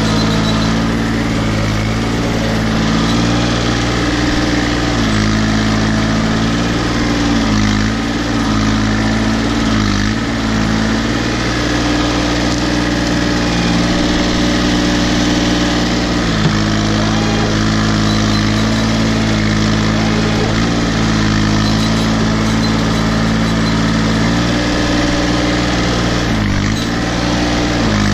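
Case 235 compact tractor's diesel engine running steadily at working speed, its pitch sagging briefly four times as the engine lugs under load.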